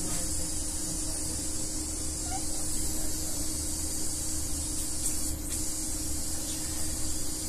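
Endoscopy equipment running: a steady hiss over a low, constant hum, unchanging throughout.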